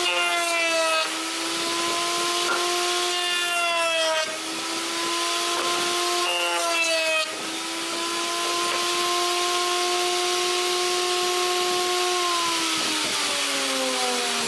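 Electric router mounted under a router table, running at speed while a wooden board is fed past the bit along the fence three times. Each pass adds a rasp of cutting wood and briefly drags the motor's whine down in pitch. From about two seconds before the end, the whine falls steadily as the router winds down.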